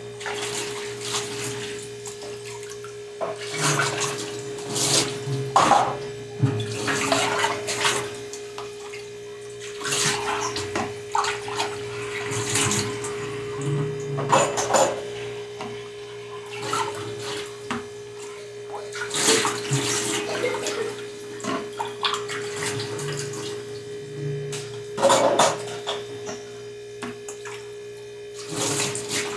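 Dishes being washed by hand at a kitchen sink: water splashing in repeated spells as plastic cups and containers are rinsed under the tap, with occasional knocks of dishware. A steady hum runs underneath.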